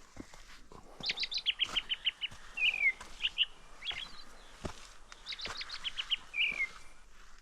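A songbird singing two phrases, each a quick run of high notes falling into a trill and ending in a downward flourish. Footsteps crunch on the forest trail between them.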